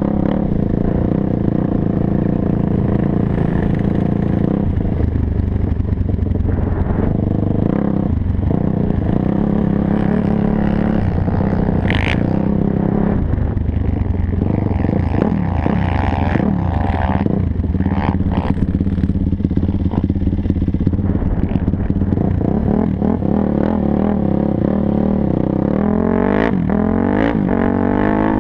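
Sport quad (ATV) engine running under load as it rides over sand, its revs rising and falling, with a few quick rev-ups near the end.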